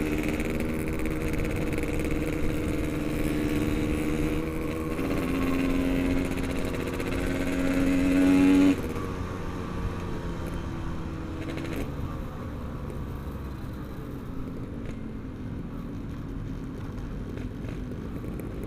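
Yamaha RX-King single-cylinder two-stroke motorcycle engine under way, a lightly ported engine running a 0.50 mm oversize piston. It revs up steadily, rising in pitch and loudness, until the throttle is snapped shut about nine seconds in. After that it runs on at lower revs, more quietly.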